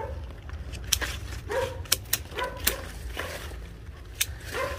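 Hand pruning shears snipping through sugar-apple branches: a series of sharp, irregular clicks, with a few short cries in between.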